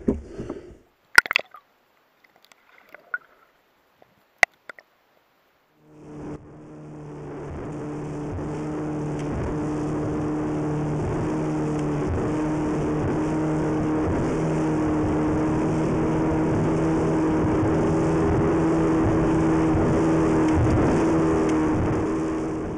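A few sharp knocks in a near-quiet stretch. Then, about six seconds in, a motorboat's outboard engine starts running steadily at speed, with rushing water and wind over it, and it fades out near the end.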